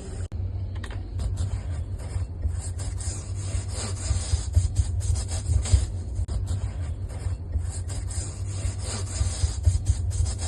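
Irregular rubbing and scrubbing strokes, as in scrubbing a washing machine clean, over a steady low hum.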